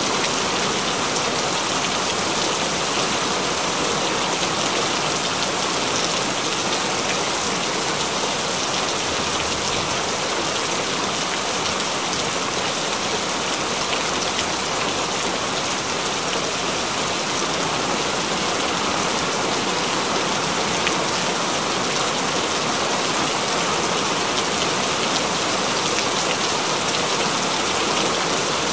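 Steady, continuous rain falling: an even hiss of drops with fine ticks of single drops scattered through it, unchanging in strength.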